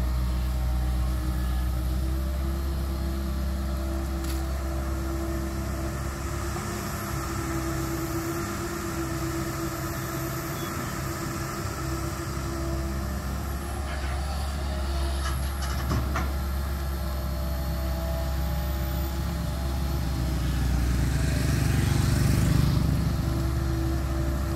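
Tracked excavator's diesel engine running steadily as it digs. There are a few sharp clicks about halfway through, and the engine gets louder for a couple of seconds near the end.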